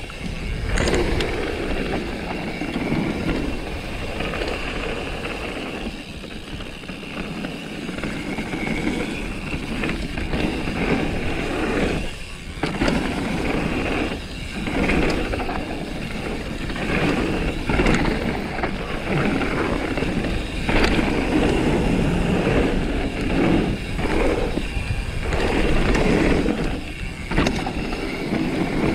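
Mountain bike descending a trail at speed: a steady rush of tyre and wind noise, dropping away briefly a few times.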